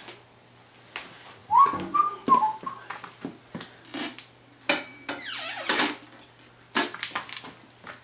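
Motorcycle tire's rubber bead squeaking against the mount bar and rim of a manual tire changer as the bar is levered around, with clicks and knocks from the metal bar. There are several short squeaks about two seconds in and a longer falling squeal a little past the middle. The dry bead drags on the bar because it needs lube on top.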